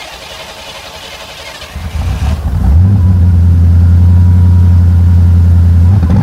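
1988 Ford Crown Victoria's V8 being cranked by the starter and catching about two and a half seconds in, then running at a steady idle.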